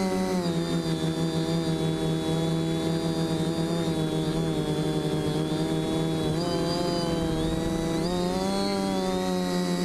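Electric motors and propellers of a NEX NEO quadcopter whining steadily, heard close up from the onboard camera. The pitch dips and climbs back several times as the throttle changes in flight.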